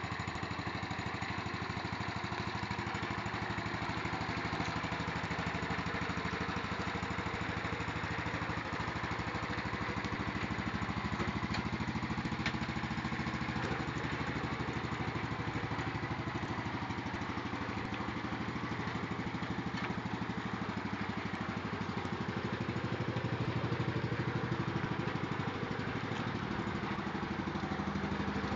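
Wheel Horse garden tractor's small engine running steadily while towing, with a slight swell in loudness about three quarters of the way through.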